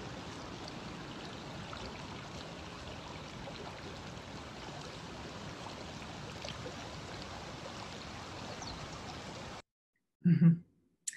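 Shallow, fast-flowing stream water running over and around rocks, a steady rushing that cuts off suddenly about nine and a half seconds in. A brief spoken word follows near the end.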